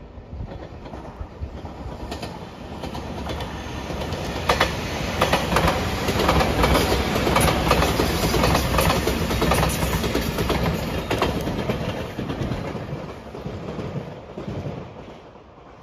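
A JR Shikoku 8000-series electric limited express passing at speed. Its noise swells as it approaches, its wheels clatter over rail joints with sharp repeated clicks for several seconds at its loudest, and it then fades as the train draws away.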